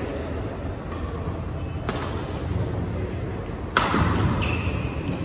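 Badminton racket striking a shuttlecock with a sharp crack that rings in the hall, a little under four seconds in, followed quickly by short high squeaks of shoes on the court mat. A steady murmur of voices in the hall runs underneath.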